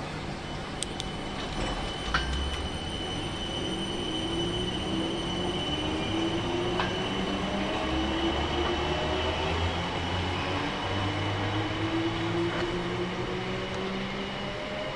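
South Western Railway train running through the station, its motor tones rising slowly in pitch as it gathers speed, over a steady high whine and the noise of the wheels on the rails. It grows louder towards the middle and eases near the end.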